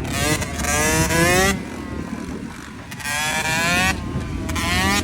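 Two-stroke motocross bike engine being revved: two rising revs of about a second each, with a shorter rev near the end, falling back to a rough low idle in between.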